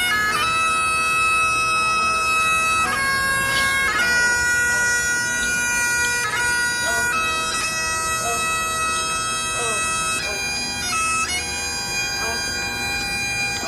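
Highland bagpipes playing a slow melody of long held notes over their steady drones.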